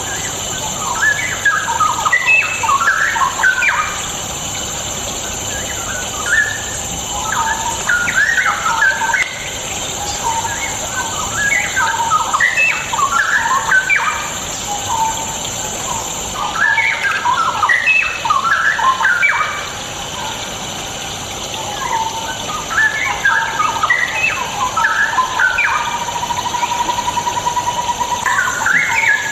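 Straw-headed bulbul (cucak rowo) song: about six bouts of loud, rich, bubbling warbled phrases, each a few seconds long with short pauses between them.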